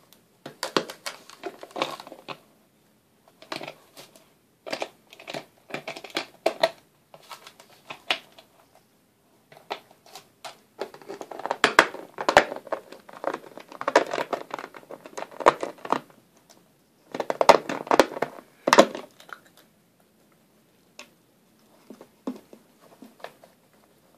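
Thin plastic Dasani water bottle crinkling and crackling as a small poodle paws and mouths at it, in irregular bursts with short pauses, loudest through the middle stretch.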